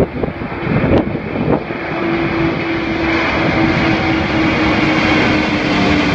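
Antonov An-225's six turbofan jet engines in a low flyby overhead: a loud jet roar that builds over the first couple of seconds and then holds steady, with a low steady drone running through it. A couple of brief thumps come in the first two seconds.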